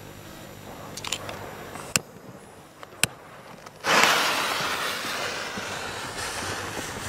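A few sharp clicks, then a fuse catching with a sudden loud sputtering hiss as it throws sparks, fading slowly.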